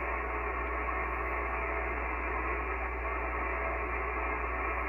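Steady hiss of HF band noise from an Icom IC-7300 transceiver's speaker, thin and muffled, with no station readable.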